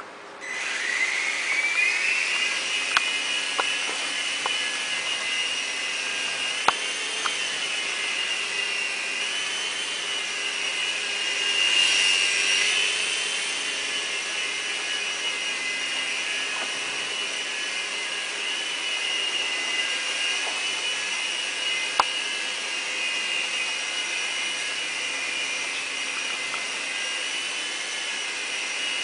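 MiniFlyer 4-channel RC helicopter's small electric motors and rotors spinning up about half a second in with a rising whine, then holding a steady high-pitched whine and buzz as it flies. The whine swells briefly about twelve seconds in, and a few sharp clicks sound over it.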